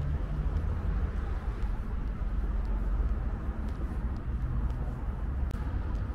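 Steady low rumble of road traffic in a city centre, with no single vehicle standing out.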